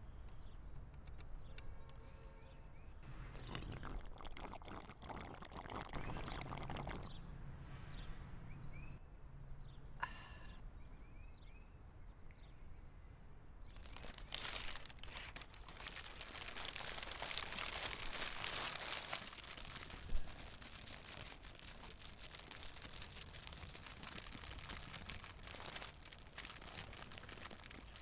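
Paper food wrapper crinkling and rustling as it is handled and unwrapped, a dense crackle through the second half, with one sharp snap about 20 seconds in.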